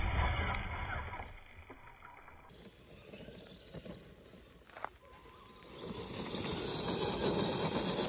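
Electric RC 6x6 crawler's motor and drivetrain running as its tyres scrabble and spin on loose dirt and stones. The sound is loud for about a second, dies down, then picks up again for the last couple of seconds.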